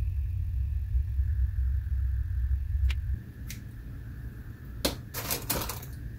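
Quiet workbench handling sounds: a low rumble that stops about three seconds in, a single click, then a quick run of clicks and taps near the end as scissors are put down and a small plastic washer is handled.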